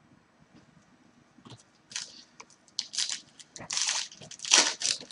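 Foil trading-card pack wrapper being torn open and crinkled: a run of sharp, irregular crackling rustles starting about two seconds in.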